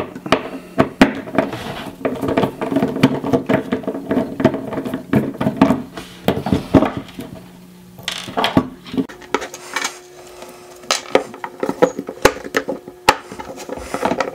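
A small screwdriver clicking and clinking against the screws and metal lid of a desktop hard drive as the lid screws are taken out: an irregular string of sharp metallic clicks and light knocks, sparser for a moment in the middle.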